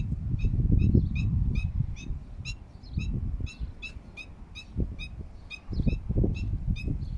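A loud long-legged bird calling a steady series of short, sharp notes, about two to three a second, over an uneven low rumbling noise.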